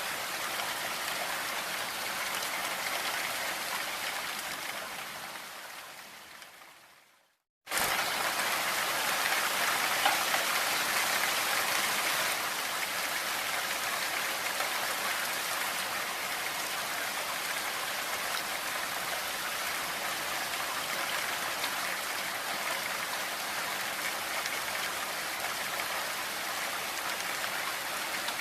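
Steady rain, an even hiss of falling drops, that fades away to silence about seven seconds in and then cuts back in abruptly a moment later at full level, as where a looped recording restarts.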